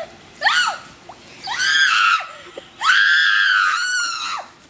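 A girl screaming in a high pitch: two short screams, then a long held scream lasting about a second and a half.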